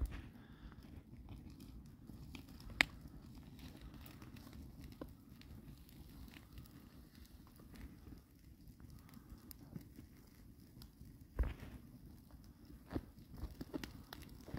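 A dog gnawing on a bone: faint scattered clicks and crunches, with a sharp crack about three seconds in and a few louder knocks in the last few seconds.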